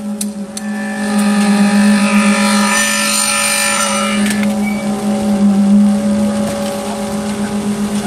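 Concrete mixer pump running steadily, a constant drone, while concrete is pumped through the delivery hose. From about a second in to about four and a half seconds, a higher whine rises over the drone, then drops away.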